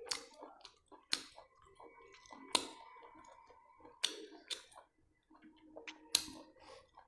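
Close-up eating sounds as rice is eaten by hand: chewing with scattered sharp clicks and smacks, about seven in all.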